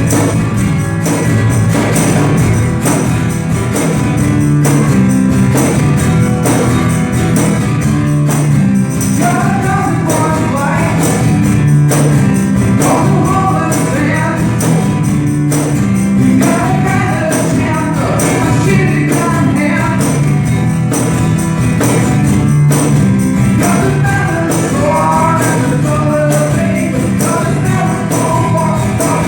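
A group playing music together: a steady percussion beat with bass notes, and singing voices coming in about nine seconds in.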